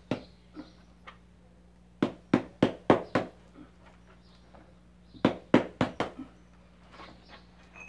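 Two quick runs of about five sharp knocks each on a small flower pot, about two seconds in and again near five seconds in. The pot is being knocked to loosen the stuck root ball so the plant can be pulled out with its soil.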